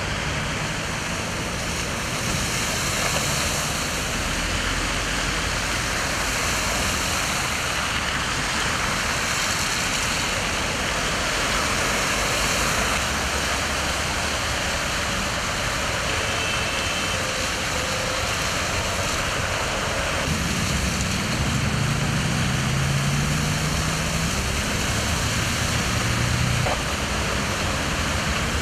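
Cars driving through a flooded road, their wheels pushing through deep water with a steady rushing splash that swells as each one passes. A car engine is heard running low for several seconds about two-thirds of the way through.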